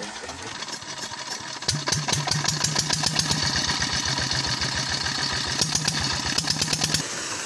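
A single-cylinder diesel water-pump engine catches about two seconds in and runs with a fast, even knocking beat. The sound cuts off abruptly near the end, and a steady rushing takes over.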